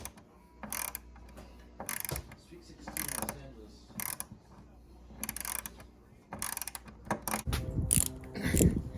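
Small 1/4-inch 36-tooth mini ratchet clicking through its pawl in short bursts about once a second, as the handle is swung back and forth, with louder handling clatter near the end.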